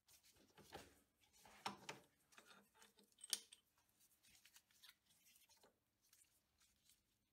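Faint clicks and taps of gloved hands handling a small stainless steel workpiece clamped in a milling vise, the loudest about two and about three seconds in, between near silence.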